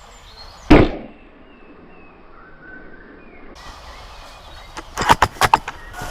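A single sharp shot from a spring-powered airsoft sniper rifle, the Novritsch SSG24, about a second in; the loudest sound. Near the end comes a quick run of five or six sharp clicks.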